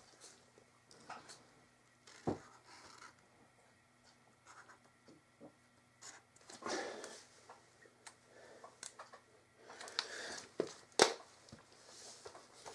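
Faint scratching of a marker pen writing on a red first-aid dry bag, with a few sharp clicks and handling rustles, the loudest click near the end.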